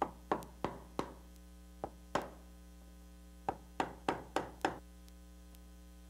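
Hammer tapping a wood chisel about eleven times in quick runs, cutting out the strike plate mortise in a wooden door jamb, with a steady mains hum underneath.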